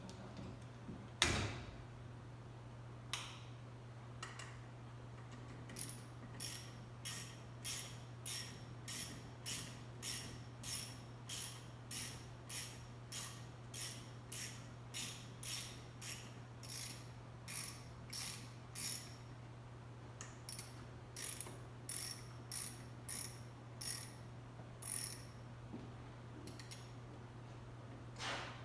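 Hand ratchet wrench being swung back and forth to run down a nut or bolt on the engine install, with an even train of short ratcheting clicks at about two strokes a second. A single knock comes about a second in.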